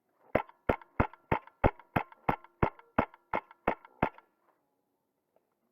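Wolverine MTW high-pressure-air airsoft rifle firing a steady string of about twelve semi-automatic shots, about three a second, which stops after about four seconds.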